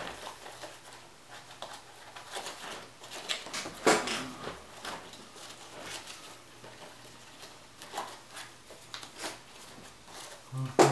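Hands handling a nylon plate carrier, rustling its webbing and working clips into place, with scattered clicks and knocks; the loudest knock comes about four seconds in.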